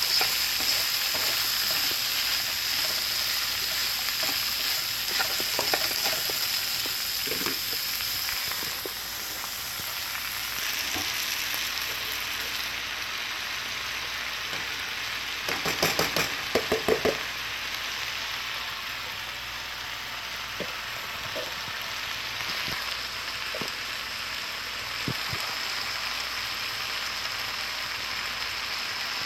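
Vegetables sizzling as they fry on high heat in a nonstick wok, stirred now and then. About halfway through comes a quick run of loud knocks as leafy greens are tipped in from a plastic container.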